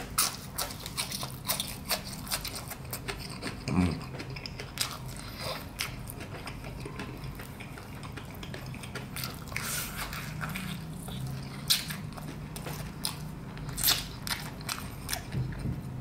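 Close-up eating of fried chicken: biting and chewing, with the meat being pulled apart by hand, heard as many short sharp clicks and smacks scattered irregularly.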